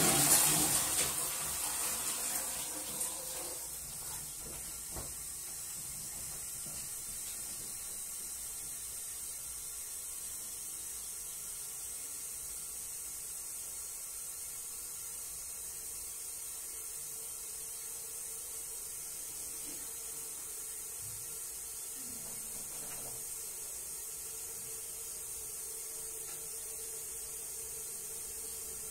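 Steady hiss with a faint steady hum underneath, after a louder rush of noise in the first few seconds.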